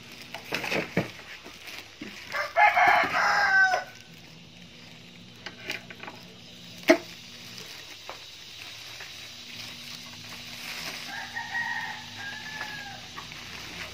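A rooster crowing loudly a couple of seconds in, then a fainter crow near the end. Between the crows come knocks and plastic-wrap handling sounds, with one sharp knock about halfway through.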